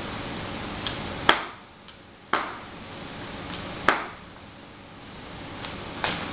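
Ballet boot heels and toe tips clicking on a hard granite tile floor as the wearer steps slowly, a sharp click about every one and a half seconds with fainter taps between.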